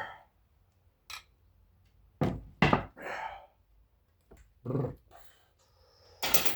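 About half a dozen sharp knocks and thunks, spaced unevenly with quiet gaps between, from hand tools working a brass rod pin in a wooden gunstock.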